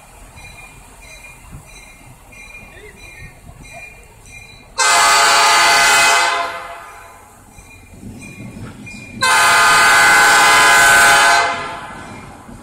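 Diesel locomotive air horn on an SD40-2 blowing for a grade crossing: two long chord blasts about four seconds apart, the second a little longer. A crossing bell rings faintly and evenly underneath, about twice a second.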